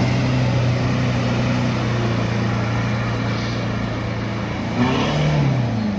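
Vehicle engine running steadily while driving, with a steady low hum; near the end the engine note drops in pitch.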